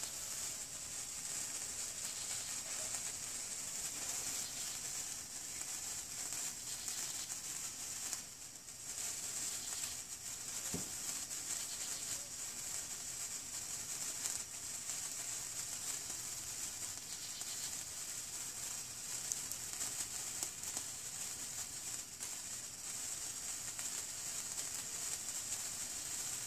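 Hand-held wire sparkler burning with a steady crackling hiss that dips briefly about eight seconds in.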